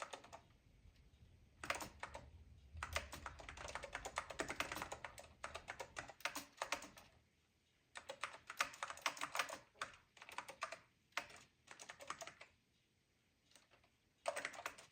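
Typing on the keyboard of a Macintosh Color Classic: runs of quick key clicks in several bursts, with short pauses between them.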